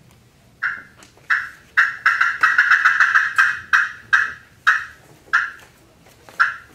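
Friction turkey call played as a hen's fly-down cackle. A few spaced notes speed up into a rapid run of cackles about two seconds in, then slow back to spaced single notes near the end.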